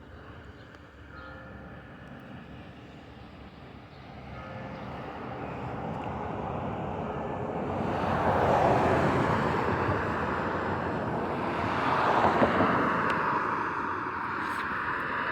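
A vehicle passing, its noise swelling from about four seconds in and loudest around eight and twelve seconds in. Before it, faint short ringing tones recur about every three seconds.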